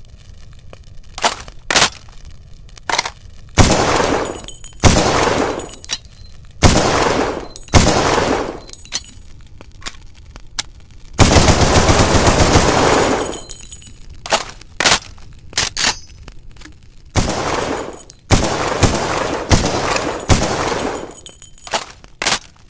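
FG42 automatic rifle (7.92×57mm Mauser) firing: single sharp shots, each with a long echoing tail, then bursts of automatic fire, the longest lasting about two seconds starting about eleven seconds in, and more fire near the end.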